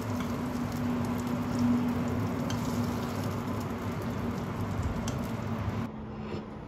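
Food sizzling and crackling in a hot frying pan, with a steady spatter of small pops. About six seconds in, it cuts off abruptly to much quieter room sound.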